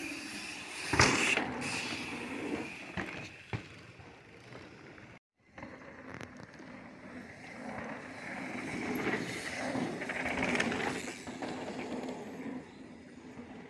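Mountain bike tyres rolling over a dirt jump trail, with a sharp thud about a second in as a bike lands a jump. Later a bike comes down the trail, its rolling noise growing to a peak near the end as it passes close, then dropping off.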